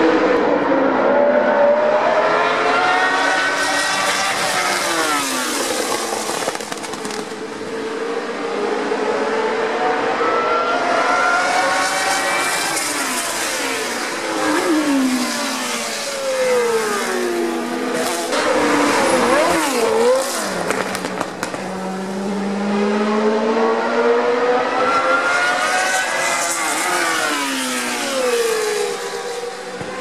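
Historic Formula One cars with Cosworth DFV V8 engines racing past one after another. Each engine rises in pitch as it accelerates and drops sharply as the car passes and shifts.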